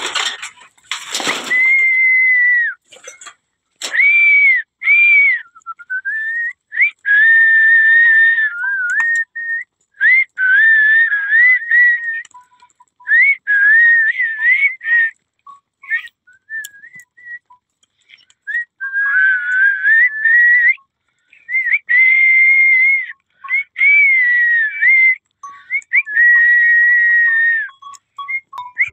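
A person whistling in short repeated phrases of a second or two each, mostly on one held pitch with some bends, with brief pauses between. A short rush of noise comes about a second in.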